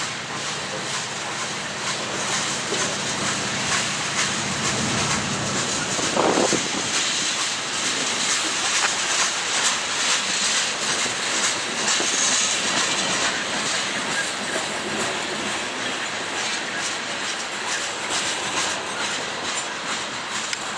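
Freight cars of oil tank cars rolling past, a steady rumble of wheels on rail with repeated clicking over the rail joints. A low engine hum fades out in the first few seconds.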